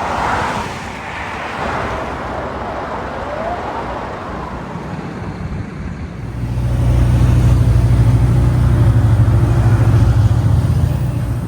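Road traffic: vehicles passing on the street. About halfway through, a heavy engine close by takes over with a loud, steady low hum.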